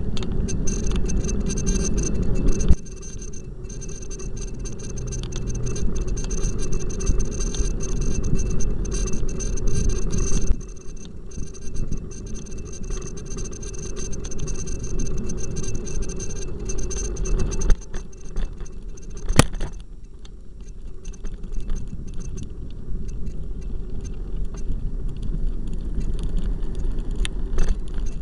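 Low wind rumble on a cyclist's camera microphone mixed with the engines and tyres of city traffic, with scattered light rattles and clicks. The rumble drops sharply twice, and a single sharp click comes a little past the middle.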